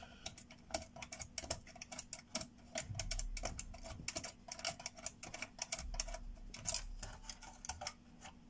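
Quick, irregular small clicks and ticks of screws being turned out by hand from the metal bracket of a GeForce GTX 280 graphics card, with a few soft low knocks of the card being handled against the bench.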